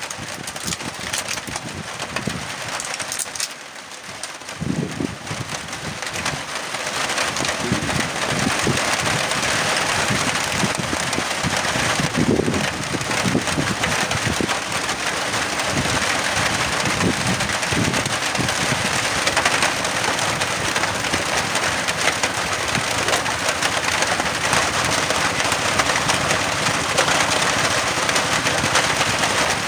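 Steady rain falling, an even dense hiss that grows louder about seven seconds in and then holds steady.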